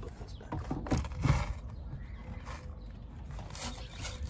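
A few knocks and clunks from hands working inside a car's cabin, the loudest about a second in, over a low steady rumble.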